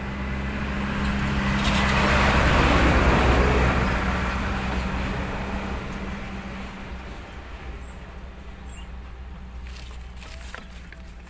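A motor vehicle passing on the road close by: engine and tyre noise build to a peak about three seconds in, then fade away slowly.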